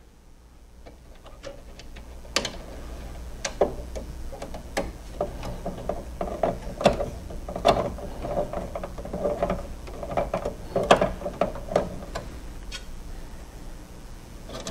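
Screws being driven into a rear-projection TV's cooling-fan mount by hand, with irregular clicks and ticks of the screwdriver and of plastic and metal parts being handled. The clicks come thickest in the middle of the stretch.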